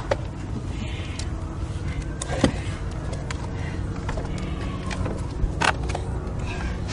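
A steady low engine-like rumble runs throughout. A few sharp knocks and clatters of rubble cut through it, the loudest about two and a half seconds in and two more close together near five and a half seconds.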